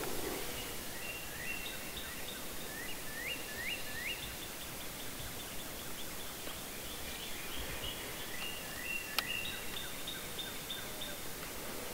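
Birds chirping and trilling in short repeated runs over a steady outdoor hiss, with one sharp click about nine seconds in.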